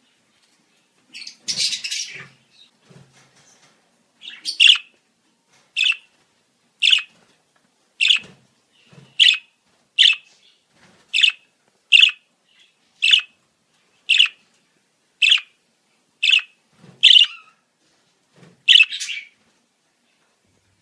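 Budgerigar calling: a short chattering burst, then a run of about a dozen short, sharp chirps, roughly one a second, ending with a slightly longer call.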